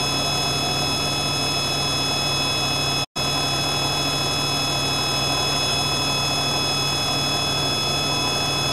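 Steady whine and drone of a helicopter's turbine engine and rotor, a mix of fixed high and low tones that never changes in pitch. It drops out for a split second about three seconds in.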